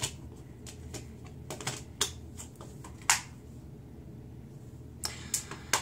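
Scattered clicks and taps of a plastic Blu-ray case being handled, the loudest about three seconds in and a few more near the end.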